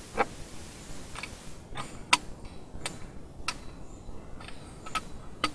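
Scattered sharp ticks at uneven intervals, roughly one to two a second, over a faint hiss: the first large raindrops of an approaching thunderstorm striking the car's roof and windscreen.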